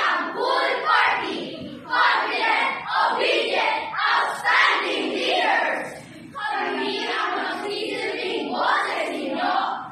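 A group of children chanting a campaign cheer together in unison, in short loud phrases, with a brief pause about six seconds in.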